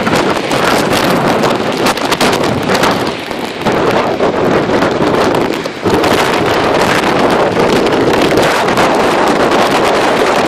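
Strong storm wind buffeting the microphone, a loud, gusting rush that eases briefly about three seconds in and again near six seconds, then holds steady.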